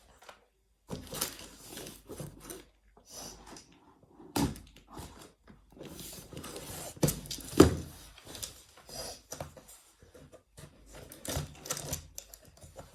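Irregular knocks, thumps and rustling of objects being handled and set down, with the loudest thump about seven and a half seconds in.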